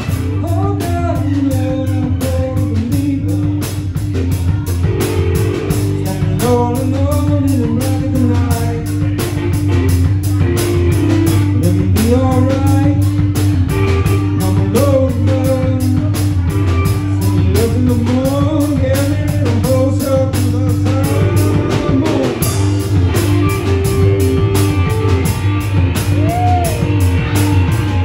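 Live instrumental blues-rock from an electric guitar, a drum kit and a keyboard. The guitar plays a lead with notes that bend up and down over a steady drum beat and a strong bass line.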